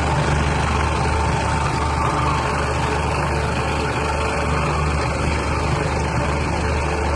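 Meatball meat-grinding machine running steadily: a constant low hum with a thin steady whine above it.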